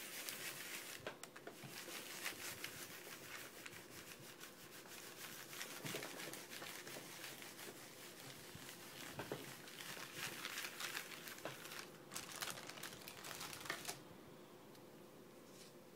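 A baren rubbed firmly over parchment laid on a paper sheet on an inked woodblock, making a continuous dry papery scratching as the sheet takes the print. The rubbing stops about two seconds before the end.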